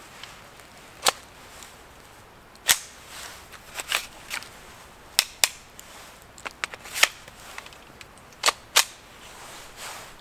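Kel-Tec CP33 .22 LR pistol firing about nine single shots at an irregular pace, two of them in quick pairs.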